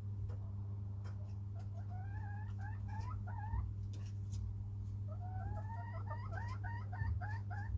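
A chicken calling: a short run of soft, bending notes about two seconds in, then a regular series of about three calls a second from about five seconds in. Underneath is a steady low hum, with a few light clicks.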